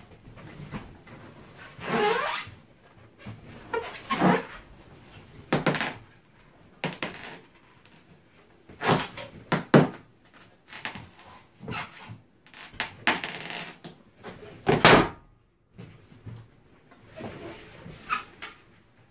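Latex balloon squeaking and rubbing under a person's weight as they sit and bounce on it, in several separate strains, some rising in pitch. About fifteen seconds in, the balloon bursts with a sharp loud bang, the loudest sound here.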